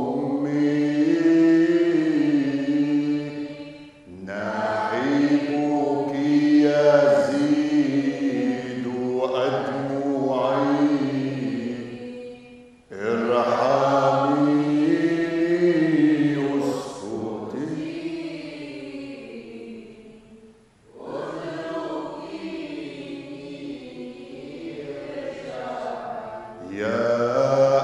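Maronite liturgical hymn chanted in slow, drawn-out phrases, with brief pauses for breath about 4, 13 and 21 seconds in.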